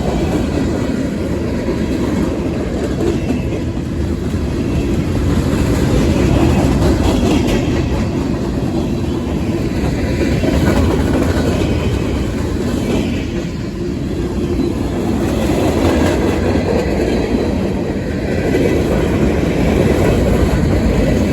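Long freight train of about 83 cars rolling past, a steady loud rumble of railcars with wheels clacking over the rail joints.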